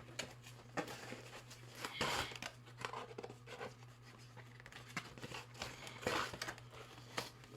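Action-figure packaging handled and pulled at by hand: crinkling rustles and small clicks, with louder bursts of tearing and rustling about two seconds in and again about six seconds in, as the tape holding the figure's arms is worked loose without scissors.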